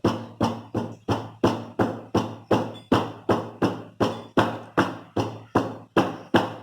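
A cake tin filled with chocolate cake batter being banged repeatedly on a cloth-covered surface to knock out air bubbles. It makes a steady run of sharp knocks, about three or four a second, each with a brief ring.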